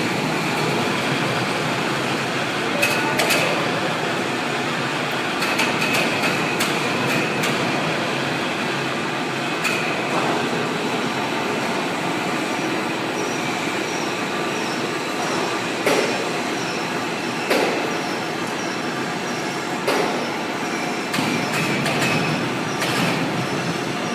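Steady machine-shop noise from metalworking machinery, with scattered sharp metallic knocks every few seconds and a faint high whine coming and going.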